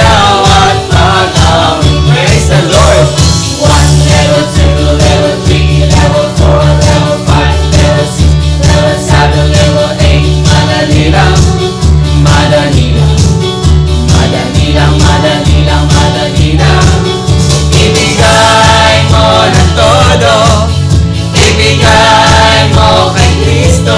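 Praise-and-worship band music with singing voices over a steady, pulsing bass beat.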